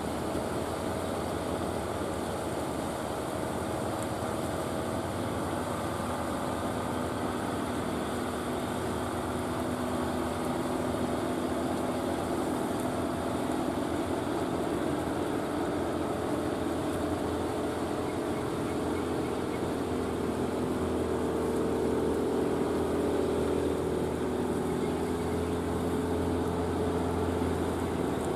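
Fishing boat's engine running steadily as the boat motors past, growing a little louder in the last third.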